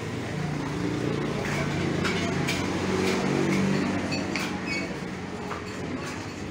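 Background hum of a passing vehicle engine, rising and falling over a few seconds, with a few light clinks of dishes near the end.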